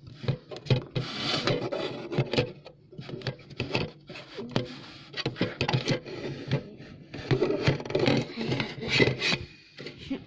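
Close rubbing and scraping noises with many small irregular knocks.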